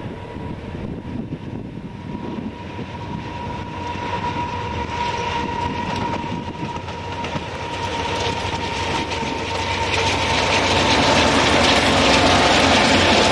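Freight train led by four Union Pacific diesel locomotives running by on the track. The engines and the rolling of the wheels on the rails grow steadily louder as it approaches.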